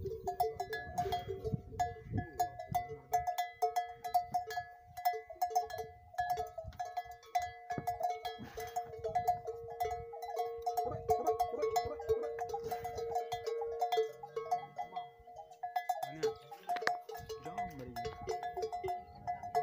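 Metal neck bells on camels clanking over and over, each strike ringing at one of two steady pitches.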